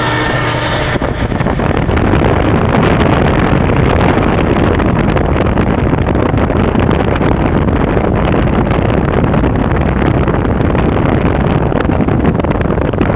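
Wind buffeting the microphone and road noise from a car driving at speed, a loud, steady rush that builds about a second in.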